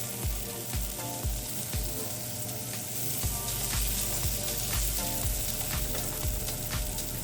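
Mushrooms sautéing in a skillet, a steady sizzle with scattered crackles and pops that grows louder about three seconds in. Background music with a steady beat plays underneath.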